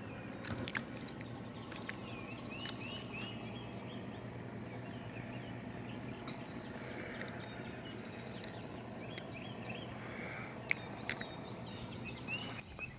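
Outdoor ambience with a steady low hum, over which a bird sings runs of short, quick, repeated chirps twice. A few sharp clicks are heard, two of them close together near the end.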